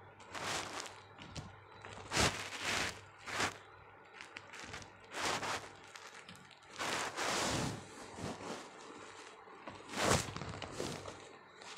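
Irregular bursts of scratchy rustling with a few sharper knocks as a small squirrel scrambles over a cloth-covered perch, its claws scrabbling on the fabric.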